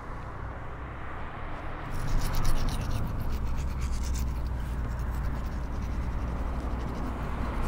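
Toothbrush scrubbing teeth in quick back-and-forth strokes, starting about two seconds in.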